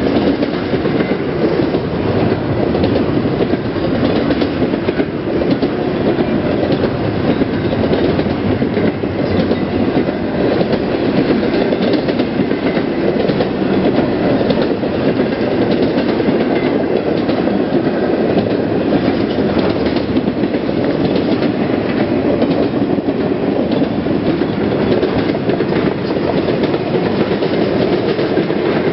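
Norfolk Southern freight train rolling past at a steady speed, its steel wheels rumbling and clicking on the rails.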